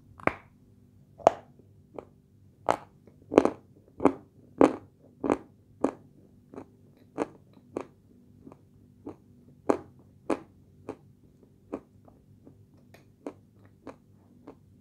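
Close-up crunching of pale edible clay (light Turkestan clay) being bitten and chewed. Sharp, separate crunches come about one and a half times a second, loudest in the first six seconds, then fainter and sparser.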